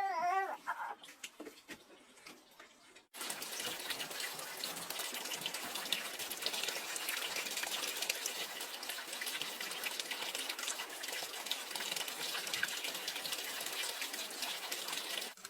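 A cat meows in the first second; then, after a short lull, a steady rush of running water starts suddenly about three seconds in and keeps up evenly until it cuts off just before the end.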